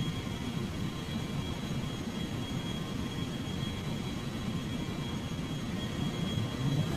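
Steady jet-engine rumble with a thin high whine, even throughout.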